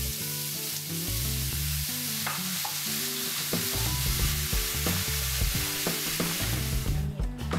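Sliced veal frying in hot olive oil in a stainless steel pan: a steady sizzle, with the stirring of a wooden spatula through the meat. The sizzle drops away briefly near the end.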